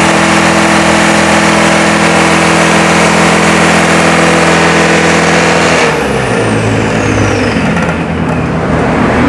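Isuzu 4JB1T four-cylinder turbodiesel driving a fire-hydrant pump, running steadily at speed with a high whine over it. About six seconds in it is shut down from the stop button: the engine note breaks up and the whine slides down in pitch as the engine winds down.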